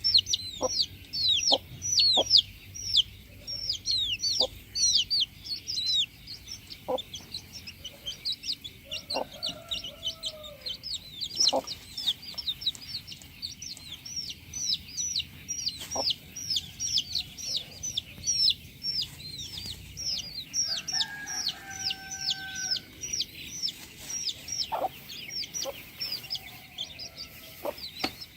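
Chickens calling: rapid high chirping throughout, with short sharp clucks and a rooster crowing about 21 seconds in.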